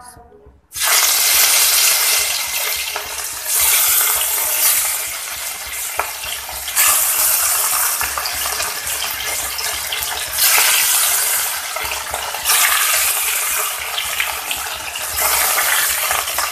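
Pieces of rui (rohu) fish going into hot mustard oil in a kadai and sizzling loudly. The sizzle starts suddenly just under a second in and flares up again several times as each further piece is added.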